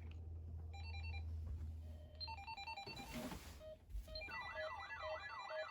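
Low hum, then a ringtone-like electronic melody of short beeping notes starting about a second in. From about four seconds a warbling tone rises and falls a few times a second over a repeating note pattern.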